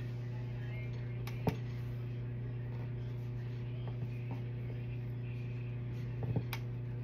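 Steady low room hum, with one sharp click about a second and a half in and a few soft taps near the end.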